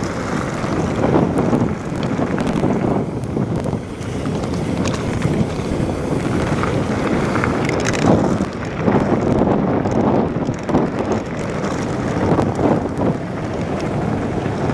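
Wind buffeting the microphone of a camera on a mountain bike descending a loose gravel track at close to 30 mph, over the rumble of knobbly tyres on stones, with scattered small clicks and knocks from the bike.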